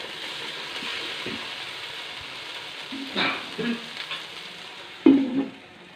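Onion, carrot and tomato masala sizzling in a hot pan, a steady frying hiss that eases slightly. A few metal clinks and knocks from a spoon or pan, the loudest just after five seconds.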